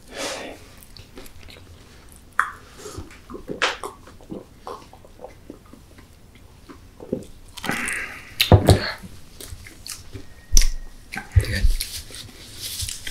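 Chewing and crunching of a fried chicken burger layered with Doritos tortilla chips: irregular wet chews and crisp bites, a few louder crunches in the second half.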